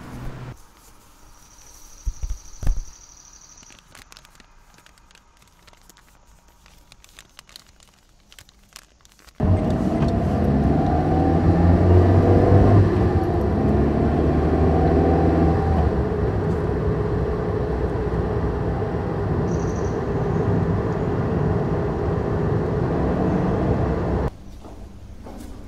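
A bus engine running with a heavy, low, steady drone. It starts suddenly about nine seconds in and cuts off suddenly near the end. Before it there is only a faint background with a few clicks and a thump.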